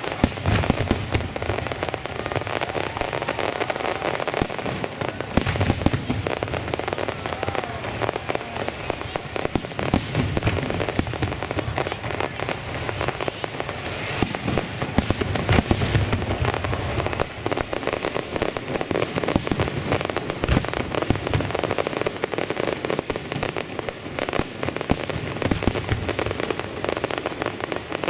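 Fireworks display: a continuous run of bangs from bursting aerial shells mixed with the crackle of crackling-star effects.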